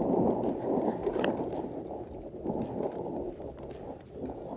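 Wind buffeting the microphone over the rumble and rattle of a hardtail mountain e-bike riding a bumpy, stony grass track.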